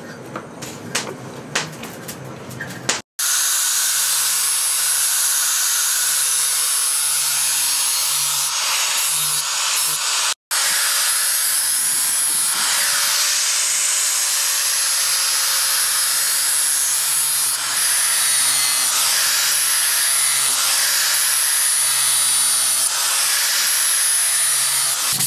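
A few light clicks, then an electric angle grinder with an abrasive disc runs steadily against a steel sword blade, grinding and polishing it, with a high, thin whine over the noise of the disc on the metal.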